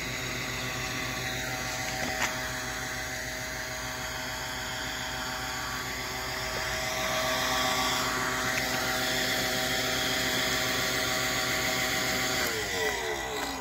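Electric blower motor running with a steady whine, then unplugged near the end, its pitch falling as it spins down.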